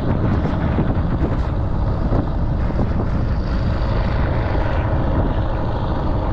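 Diesel vehicle driving: a steady engine and road rumble, heard from inside.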